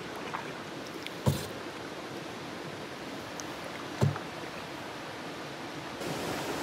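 Steady rushing of a small waterfall, a little louder near the end. Two dull knocks cut through it, about a second in and again about four seconds in, which are the loudest sounds.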